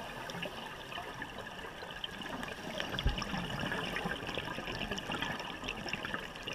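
Underwater bubble gurgling from scuba divers' exhaled breath, over a steady crackle of fine clicks. The gurgling swells about two and a half seconds in, and a single low thump comes about three seconds in.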